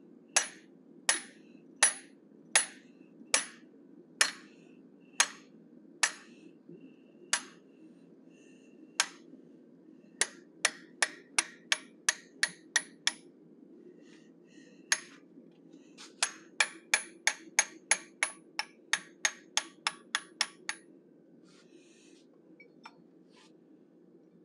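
Hand hammer striking a hand-held top tool on red-hot steel set in the anvil. Sharp ringing metallic blows come steadily about once every three-quarters of a second at first, then in quicker runs of about three a second, stopping near the end.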